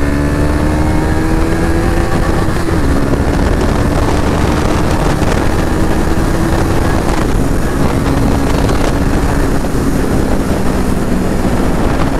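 KTM Duke 250's single-cylinder engine pulling hard with the dB killer removed from its exhaust. The revs climb steadily, then fall suddenly at an upshift about three seconds in, climb again, and fall at another shift around seven seconds in.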